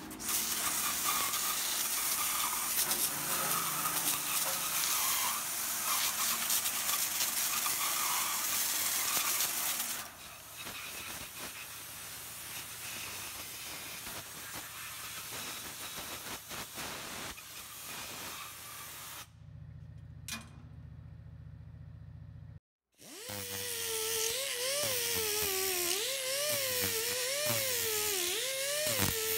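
Water spray hissing inside a cabinet parts washer with a turntable basket, loud for about ten seconds and then softer. After a short break near the end, a small high-speed rotary tool whines, its pitch wavering as it works a steel part.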